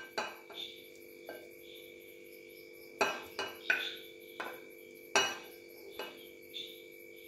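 A wooden spoon pushing boiled potato pieces off a plate into a glass bowl: about ten light knocks and clinks of spoon and plate against the bowl, the loudest about three and five seconds in, over a faint steady hum.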